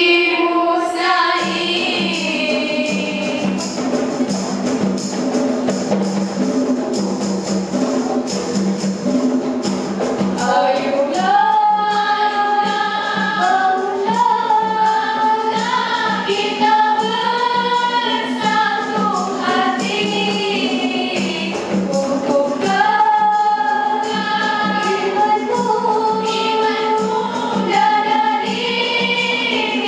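Girls' nasyid group singing together into microphones, a lead melody with harmony parts; the melody line comes in stronger about ten seconds in.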